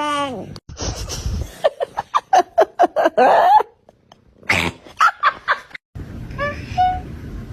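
Cats meowing and chirping: a long falling meow at the start, then a quick run of short calls, and a few small chirps near the end.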